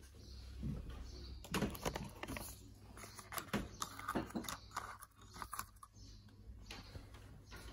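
Small cardboard gift box being handled: a run of light clicks and taps as its lid and insert card are moved, busiest in the middle.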